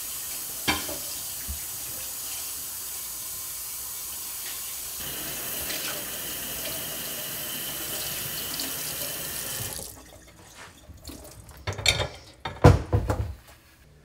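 Kitchen faucet running in a steady stream into a stainless steel sink, shut off about ten seconds in. A few loud thumps follow near the end.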